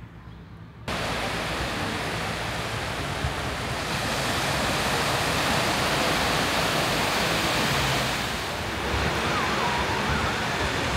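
Small surf waves breaking and washing up a sandy beach: a steady rush that starts suddenly about a second in.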